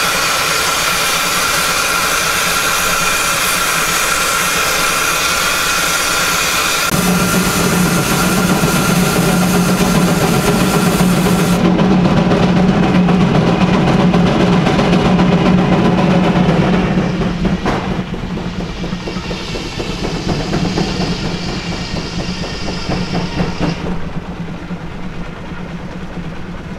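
Case steam traction engine venting steam: a loud, steady hiss, joined about seven seconds in by a low steady hum. The hiss thins partway through and the whole sound drops noticeably after about seventeen seconds.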